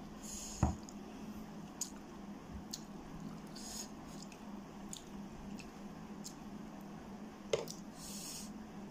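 Close-miked wet mouth sounds from eating: scattered small squishy smacks and clicks over a steady low hum, with a single thump about half a second in. Near the end a metal spoon scrapes and clicks against the tray as it scoops up noodles.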